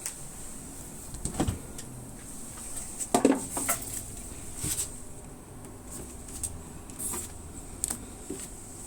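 Scattered clicks and knocks of the refrigerator's door and plastic fittings being handled, with two louder knocks, one about a second and a half in and one about three seconds in.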